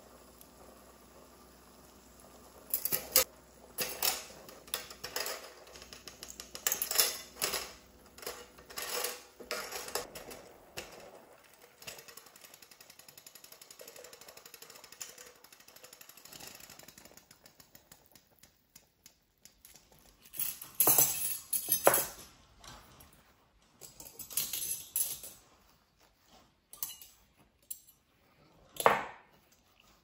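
Stainless-steel forks and spoons clinking against a steel pot and against each other as they are handled, in scattered bursts of sharp clicks and clatters with a quiet stretch in the middle and one loud clink near the end.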